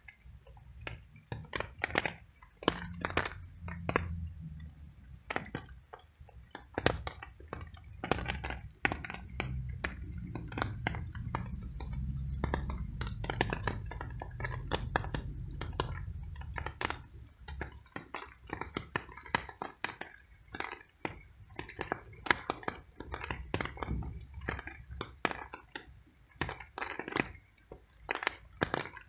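Stray tabby cat chewing small pieces of cooked veal: an irregular run of quick clicks and smacks, with a low rumble underneath from about two seconds in until a little past halfway.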